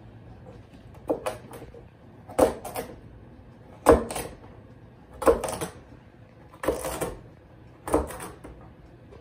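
Chef's knife chopping little carrots on a wooden cutting board: six bursts of two or three sharp knocks, about one burst every second and a half.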